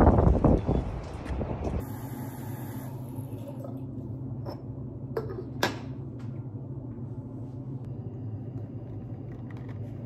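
City street rumble, loudest at the very start, cuts off about two seconds in. A steady low room hum follows, with a few sharp clinks of a ceramic teapot being handled at a kitchen sink.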